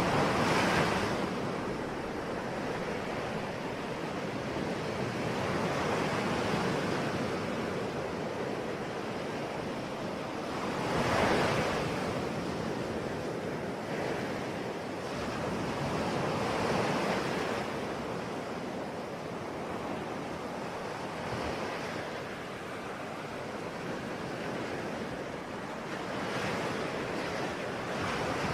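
Ocean waves breaking and washing on a shore, a steady surf with swells of sound every five seconds or so, the biggest about a third of the way through.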